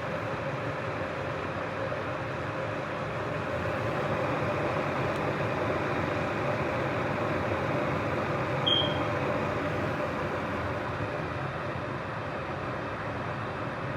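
Proctor Silex 1-litre electric kettle at a full rolling boil: steady noise of water bubbling hard. A single short, sharp, high-pitched click about nine seconds in.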